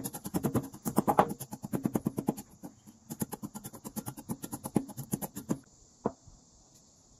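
Wooden pestle grinding crisp dry-toasted Sichuan peppercorns and salt in a ceramic mortar: many quick crushing strokes in a steady run that stops about five and a half seconds in, followed by a single light knock.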